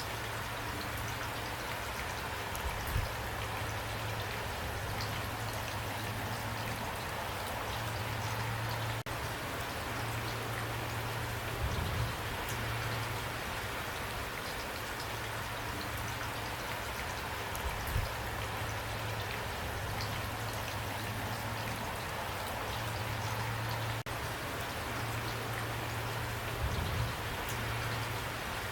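Steady rain falling, with a few short low thumps scattered through it.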